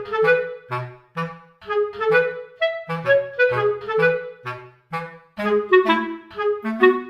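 Background music: a light, bouncy tune of short, separate notes, a reedy melody over a plodding bass line.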